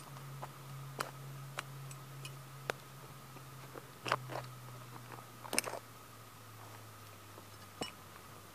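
Sneaker soles crunching and grinding the broken plastic pieces of a 1:18 scale model car into soft dirt: scattered sharp cracks a second or more apart, the loudest ones near the middle.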